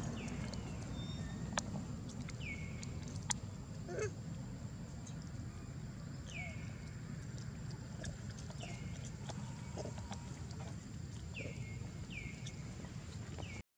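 Short, high chirping calls that slide downward in pitch, about eight of them at irregular intervals, over a steady low outdoor background with a faint steady high tone.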